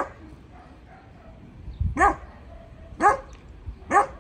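Dog barking: four short, sharp barks, the last three about a second apart.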